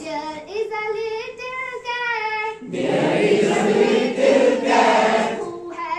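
A children's action song sung call-and-response: one high voice sings a line alone, then a group of voices repeats it together from about two and a half seconds in.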